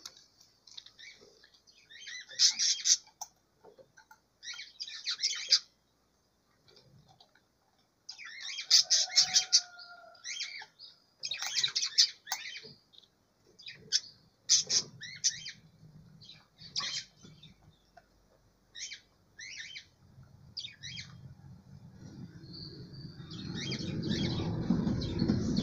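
Small aviary birds chirping in short, high clusters every couple of seconds; a low rumbling noise builds over the last few seconds.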